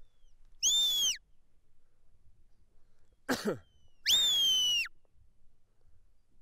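A sheepdog handler's whistle commands to a working border collie: two clear whistles, each rising and then falling in pitch. The first comes about half a second in and is short; the second, about four seconds in, is longer. A brief, lower falling sound comes just before the second whistle.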